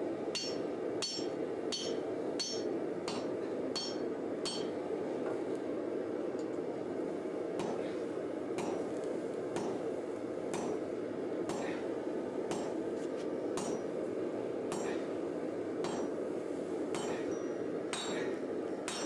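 Sledgehammer blows on a hot W1 steel bar on an anvil, drawing it out into a sword blank. A run of quick ringing strikes comes about two a second, then after a short pause slower strikes about one a second, over a steady low rushing noise.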